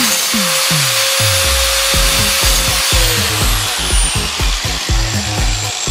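Angle grinder running and grinding the aluminium edge of an iPhone 6, a steady motor whine under a dense grinding hiss; the whine drops in pitch about three seconds in as the disc bogs under load. Background music with a steady beat plays along.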